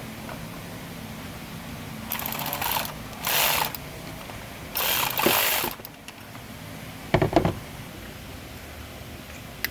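Ratchet wrench tightening the bolts of a new EGR valve assembly on a 5.7 Hemi, in several short runs of rapid clicking and rasping.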